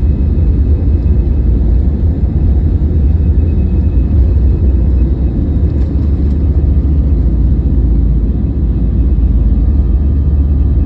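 Airliner cabin noise during takeoff or the climb after it: a loud, steady, deep rumble from the engines and the airflow around the fuselage.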